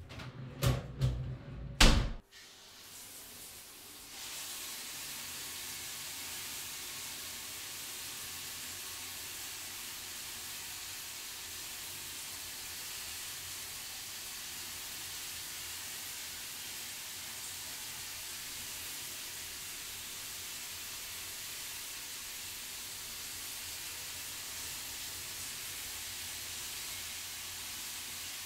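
A few short thumps in the first two seconds, the last the loudest, then a steady, even hiss that sets in about four seconds in and holds.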